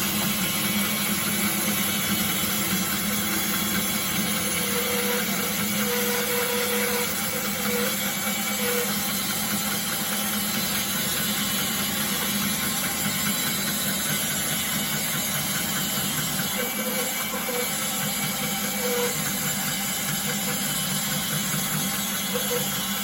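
Hauslhof HBB 650 band sawmill running steadily, its band blade sawing lengthwise through an ash log.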